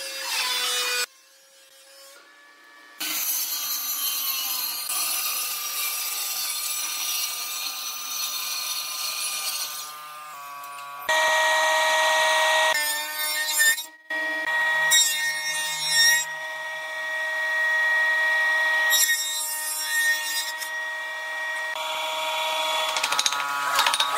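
Electric woodworking power tools running on wood, in several short clips that cut in and out abruptly, each with a steady motor whine over the noise of the wood being worked.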